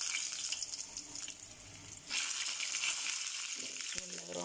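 Eggplant pieces sizzling in hot oil in a frying pan, a steady hiss that grows louder about two seconds in as another piece is laid in.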